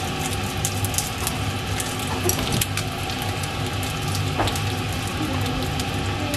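Sun-dried beef steaks frying in oil in a nonstick pan: a steady sizzle with many small crackles and pops.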